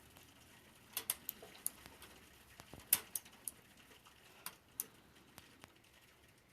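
Faint, irregular small clicks and taps from a latch tool and the latch needles on an LK150 knitting machine's needle bed, as stitches are pulled through one by one in a crochet bind-off.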